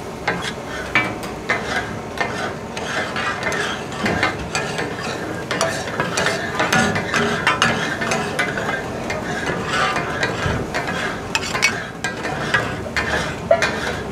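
Metal spatulas clattering rapidly and unevenly on a large flat iron griddle as they chop and toss minced goat kidney and liver: the clatter that gives taka-tak its name.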